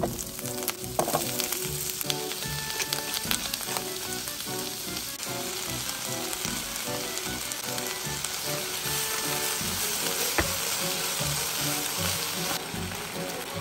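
Vegetables sizzling in hot oil in a nonstick frying pan as they are stir-fried, with scattered clicks of a spatula against the pan.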